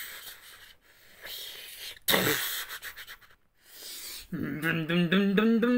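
A person's voice: breathy hissing and puffing noises, then from about four seconds in a drawn-out voiced sound whose pitch wavers up and down.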